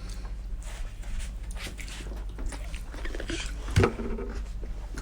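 Quiet eating sounds: chewing and small mouth clicks, over a steady low hum. A short, louder sound with a voice-like tone comes just before four seconds in.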